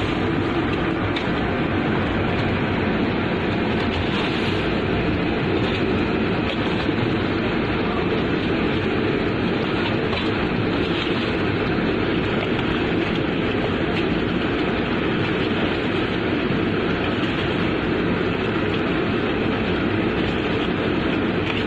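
Steady, unchanging machinery noise of a ship running, a dense low-to-mid rush with no distinct strokes or events.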